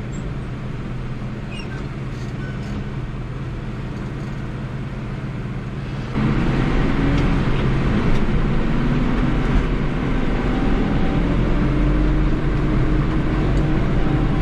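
New Holland TD75 tractor's diesel engine running steadily, heard from inside the cab, then revving up sharply about six seconds in and holding the higher speed.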